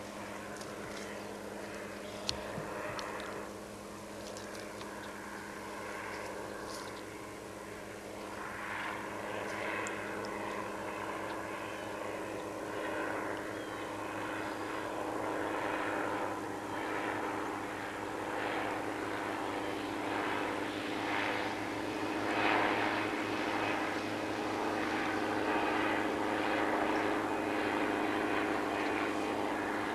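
Small helicopter flying overhead, a steady engine-and-rotor drone that grows gradually louder as the helicopter approaches.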